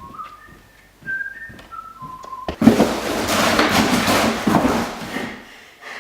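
A person whistling a short tune of brief notes that step up and down. About two and a half seconds in, a loud rushing noise starts suddenly, lasts about three seconds and fades away.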